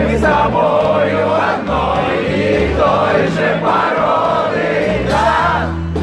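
A live rock band playing with sung vocals over a steady drum beat and bass.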